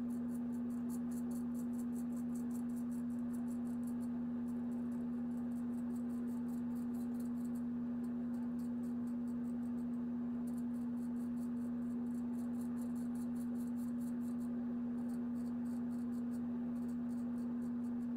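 Gold Dollar straight razor scraping through stubble in quick short strokes, a rapid high crackle with a few brief pauses, over a steady low hum.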